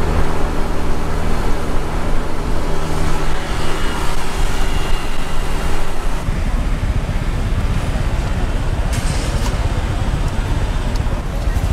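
Motor scooter engine running steadily under way, with low wind rumble on the microphone. About six seconds in the steady engine note fades into a rougher low rumble as the scooter slows, and a brief hiss comes about nine seconds in.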